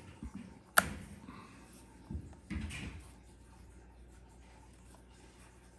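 A mirrorless camera body being handled: one sharp click about a second in, with a few lighter clicks just before it and soft handling rustles a second or two later.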